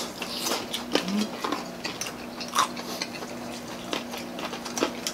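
Close-miked eating sounds of several people eating fried chicken and rice with their hands: chewing and mouth smacks, with scattered light clicks and clinks of plates.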